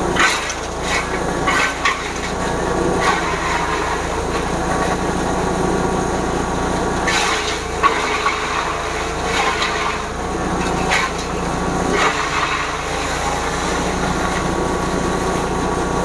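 Forage chopper (grass chopping machine) running steadily under its engine, with irregular sharp crunching bursts every second or two as stalks and leaves are fed into the cutter.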